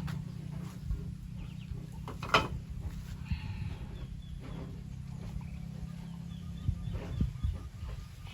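Faint chicken calls over a steady low rumble, with a single sharp knock about two and a half seconds in.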